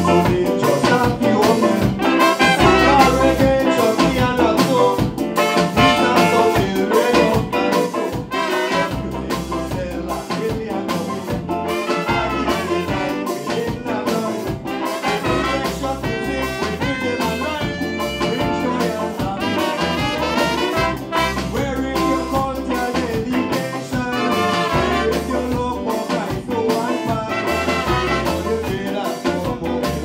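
Live band playing a calypso number with a horn section of saxophone, trumpet and trombone over drums, bass guitar and keyboard, with a steady beat.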